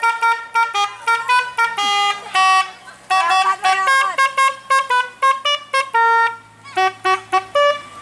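Roof-mounted multi-trumpet telolet horn on a Toyota Rush playing a quick tune: a rapid string of short toots jumping between several pitches, with brief gaps between the notes.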